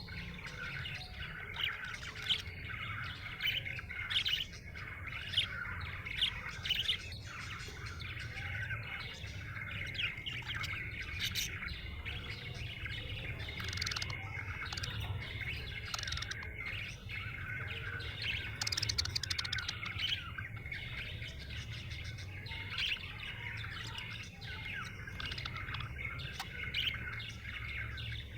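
Budgerigars chirping and warbling continuously, a dense chatter of short sharp chirps and twittering, over a steady low hum.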